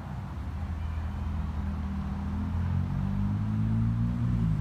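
Vehicle engine running with a steady low hum; its pitch shifts a little about three seconds in.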